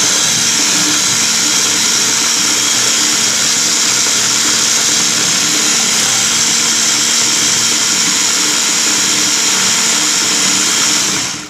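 Handheld electric mixer running at a steady speed, its twin wire beaters whipping instant coffee, sugar and water into a thick foam in a glass bowl. It comes on at the very start and cuts off suddenly at the end.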